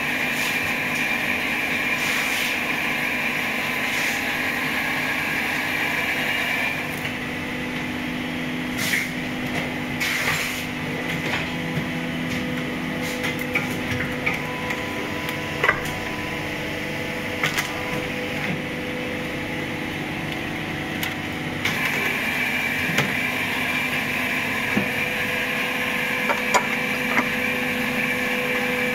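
A plastic injection moulding machine running with a steady whine and hum. The high whine drops out for about fifteen seconds in the middle, and scattered clicks and knocks are heard throughout.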